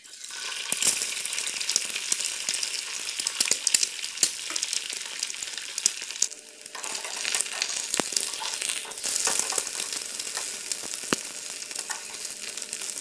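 An egg sizzling in hot oil in a nonstick frying pan, starting the moment it is cracked in, with scattered sharp pops; the sizzle dips briefly about six seconds in.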